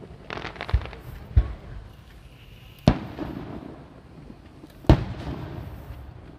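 Fireworks display: two dull low thumps with some crackling in the first second and a half, then two sharp booms about three and five seconds in, each trailing off in a rumbling echo.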